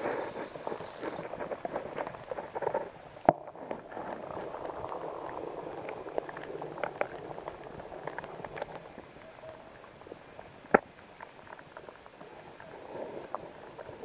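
Bubbling, gurgling water with scattered small crackles, heard through a camera housing submerged in a shallow freshwater pond. Two sharp knocks stand out, about three seconds in and, louder, near eleven seconds.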